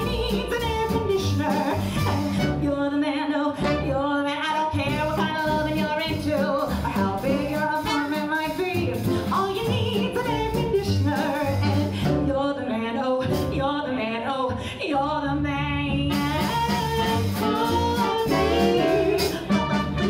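A female jazz singer scat-singing, with wordless vocal runs backed by a small swing band.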